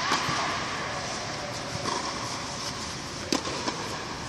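Steady hiss of a large indoor tennis hall, with a sharp knock of a tennis ball a little over three seconds in and a fainter knock just after.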